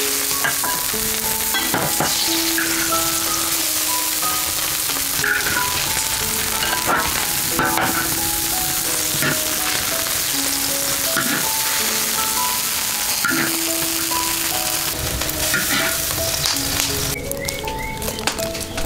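Pickled-greens broth boiling hard and sizzling in a large wok, with a ladle clinking and scraping against the wok as it scoops. A soft melodic background tune plays throughout, and the sizzling falls away near the end.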